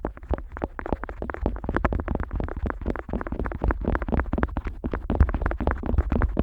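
An otoscope's tip rubbing, scraping and tapping against the ear of a Neumann KU100 dummy-head microphone, heard close up as a dense run of quick scratches and clicks over a low handling rumble.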